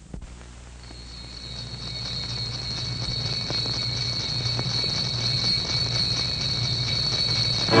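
Noise of an old film soundtrack: a steady high-pitched whine over a low hum and hiss, with a few faint crackles, slowly getting louder.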